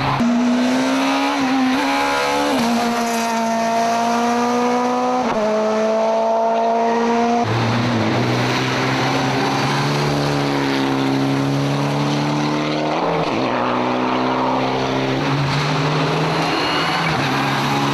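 Rally car engine at full throttle on a stage, climbing in pitch and dropping at each upshift, three times in the first eight seconds, then running high with a brief lift and pickup about two-thirds of the way through.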